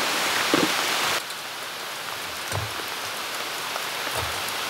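A steady rushing hiss, loud for about the first second, then dropping to a quieter hiss. Over the quieter hiss come faint crackles and two low puffs from charcoal catching in a lit chimney starter.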